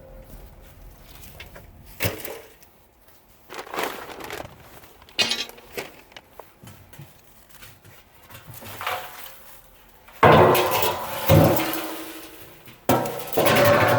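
Scattered clinks and knocks of hard objects being handled, then a run of much louder clangs with ringing from about ten seconds in.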